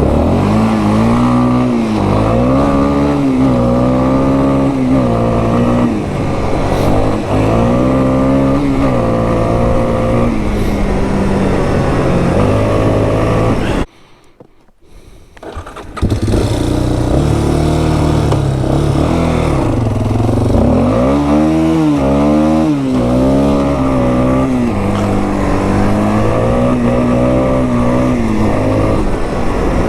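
2001 Yamaha Warrior 350 ATV's single-cylinder four-stroke engine running under a rider, its pitch rising and falling again and again with the throttle, with a sudden break of about two seconds near the middle. It is running well after a carburetor cleaning.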